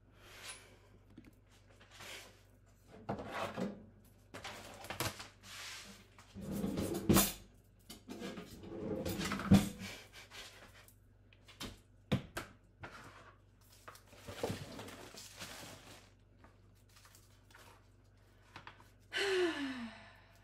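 Kitchen handling noises from sandwich prep: a few knocks and thunks, with rustling and short scrapes, as a cutting board and knife are set out on a counter. A short sound falls in pitch near the end.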